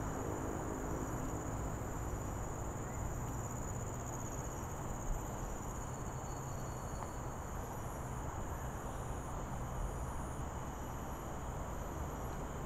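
Steady chorus of insects droning at several high pitches, over a low rumble.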